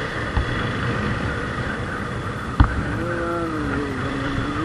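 Motorcycle engine running under way, its note rising and falling, over steady wind and road noise. There is a small knock just after the start, and a sharper, louder knock about two and a half seconds in.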